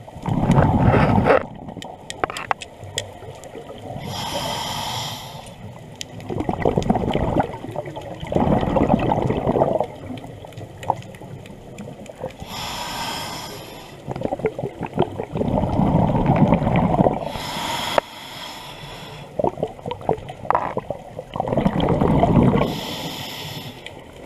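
Scuba regulator breathing heard underwater: a short hissing inhale through the demand valve every several seconds, each followed by a louder, longer gush of bubbling exhaled air, in a slow, even breathing cycle.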